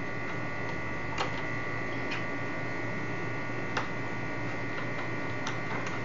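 Steady hum with a few faint, short metallic clicks spread through it, from a spanner working the knob's tightening nut loose.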